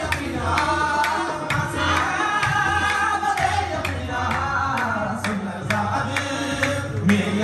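Qawwali music: voices singing in long, bending phrases over tabla, with sharp strokes at a steady beat.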